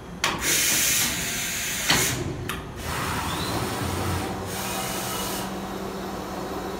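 Mazak VCN 700D vertical machining center moving its axes: the table and spindle head travel with a rush of sliding and drive noise that starts suddenly, a sharp clack about two seconds in, then settles into a steady hum.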